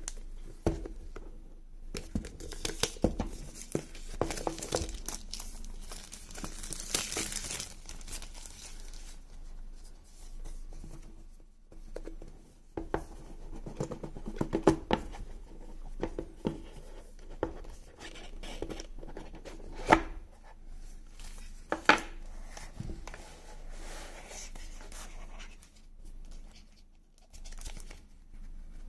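Smartphone packaging handled by hand: plastic wrap and tape tearing and crinkling, a cardboard box being opened with scraping, tapping and two sharp knocks, and a paper leaflet rustling.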